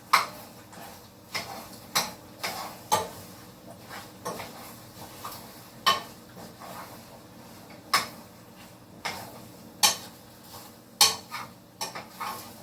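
A utensil stirring a pot of pasta, knocking against the pot in sharp, irregular clanks about once a second, over a faint low steady hum.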